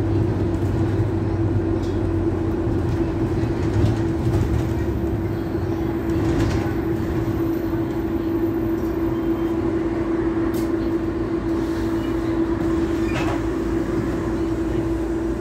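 Double-decker bus on the move, heard from inside on the upper deck: a steady running rumble with a constant droning tone. The low rumble eases off after the first few seconds.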